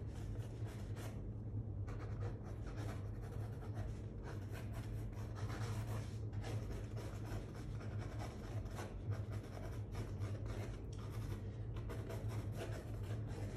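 Ink pen scratching across sketchbook paper in many quick, short sketching strokes, over a steady low hum.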